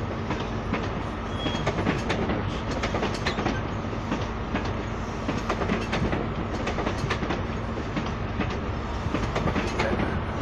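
A High Speed Train's Mark 3 coaches rolling slowly through the station, their wheels clicking irregularly over rail joints and pointwork above a steady low drone.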